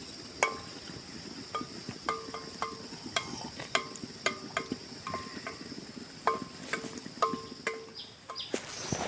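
Steady high-pitched drone of forest insects such as cicadas or crickets, with a string of sharp irregular knocks, each ringing briefly like a light metal clink.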